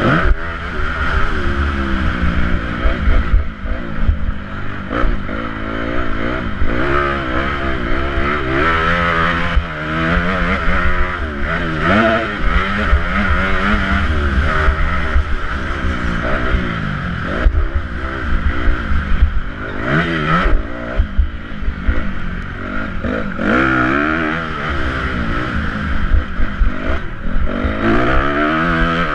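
Motocross motorcycle engine at racing speed, its pitch climbing and dropping over and over with throttle and gear changes, over a heavy rumble of wind on the helmet-camera microphone, with scattered knocks from the bike over the bumpy track.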